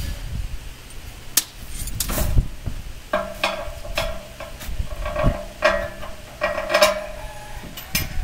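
Irregular metal clinks and taps on the steel mould and frame of a concrete block moulding machine as the mould is fitted and bolted in place. From about three seconds in, the struck steel rings on between the taps.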